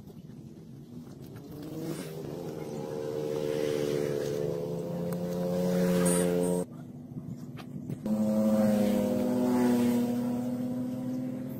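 A motor engine running with a steady hum, its pitch rising slightly; it cuts off abruptly a little under seven seconds in and comes back about a second later at a slightly higher pitch.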